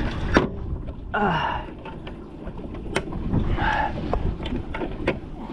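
Wind buffeting the microphone on an open boat, a steady low rumble. A sharp knock comes near the start, with a few lighter clicks and two short rushing noises, one about a second in and one near the middle.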